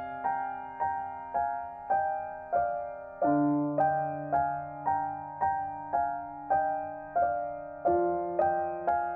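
Background piano music: an even run of single notes, about two a second, over held bass notes that change twice.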